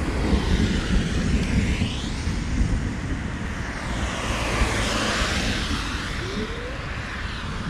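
Wind rumbling on the microphone, with the hiss of vehicles passing on a wet road swelling and fading twice.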